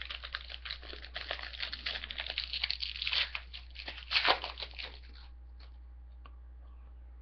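Hockey card pack wrapper being torn open and crinkled for about five seconds, with a louder crackle of the wrapper about four seconds in.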